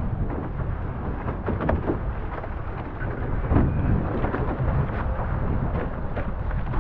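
Wind buffeting the microphone on a sailing catamaran underway, a heavy steady rumble, with water rushing past and spray spattering in short splashes throughout.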